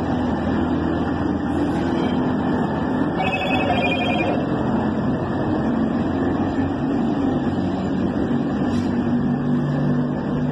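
DF7G-C diesel locomotive's engine running with a steady drone as it rolls slowly past at close range. About three seconds in, a brief trilling, ringing tone sounds for about a second and a half over the engine.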